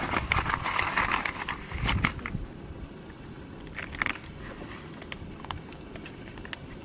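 Plastic pouch of dog treats crinkling as it is handled, with crackles and crunches. The sound is densest in the first two seconds, then thins to scattered sharp crackles.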